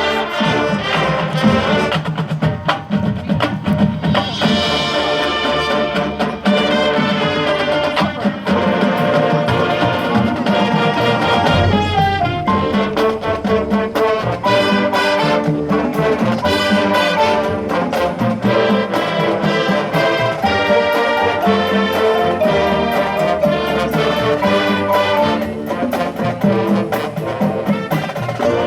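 High school band playing a brass-led piece, trumpets and trombones over percussion.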